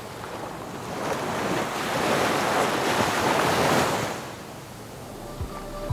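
Ocean surf on a sandy beach: a wave swells and washes in over about three seconds, then ebbs away. Music begins to come in near the end.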